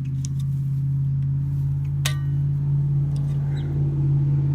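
A steady low mechanical hum, with one sharp metallic clink about two seconds in that rings briefly.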